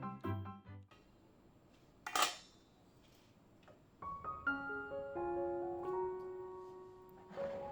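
Background music: a light mallet-like tune stops about a second in, and soft sustained piano notes begin about four seconds in. A brief sharp noise about two seconds in is the loudest moment.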